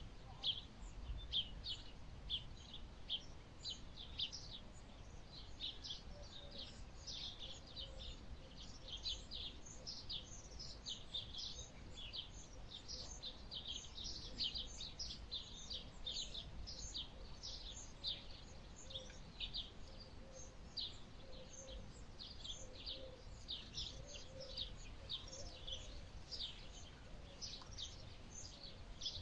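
Many small birds chirping continuously, short high chirps overlapping several times a second, over a low outdoor rumble of wind.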